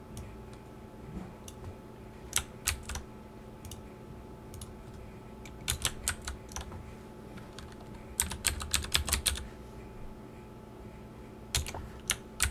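Computer keyboard typing in short bursts of keystrokes, with a fast run of keys a little past the middle, over a faint steady hum.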